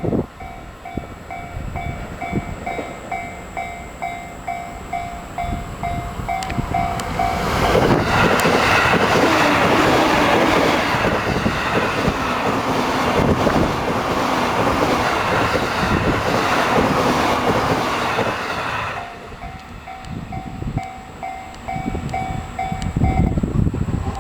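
Railway level-crossing warning bell dinging about twice a second. About seven seconds in, a train passes through the crossing with a loud rumble and clatter for roughly eleven seconds, drowning the bell. After the train clears, the bell rings on for a few seconds and stops near the end.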